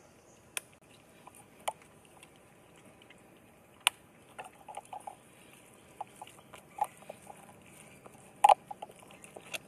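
Scattered sharp clicks and soft crackles as a serval takes food from a gloved hand through the mesh of a wire lockout cage, with louder single clicks about half a second, a second and a half, four and eight and a half seconds in.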